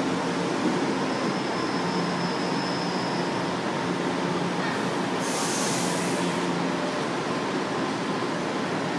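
São Paulo Metro stainless-steel train running along the station platform and coming in to a halt: a steady rumble of wheels and motors with a thin whine for a couple of seconds, and a short burst of hiss a little past halfway.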